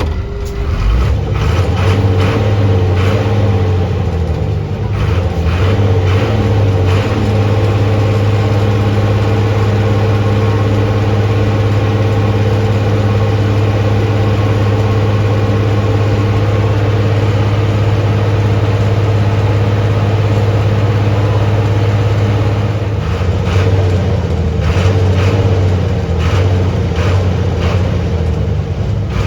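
Motor vehicle engine running steadily under way. Its pitch rises and falls with the throttle about a second in and again around 23 seconds, as it revs or changes gear.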